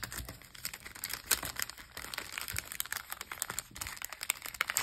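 Clear plastic sticker sleeve crinkling as it is handled and lifted, a quick scatter of small crackles.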